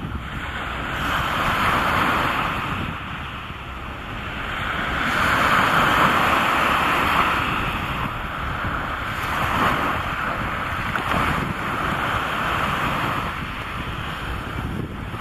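Sea waves washing and wind blowing across the microphone, a steady rush that swells and eases every few seconds, with a low rumble of wind buffeting underneath.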